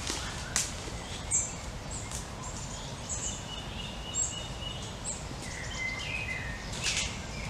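Small birds chirping: repeated short, high chirps and a few whistled notes, over a steady low rumble of wind.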